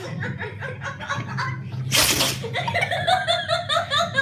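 A dog sneezes once, a short burst about two seconds in, the latest of a quick run of sneezes. People laugh around it, the laughter growing louder right after the sneeze.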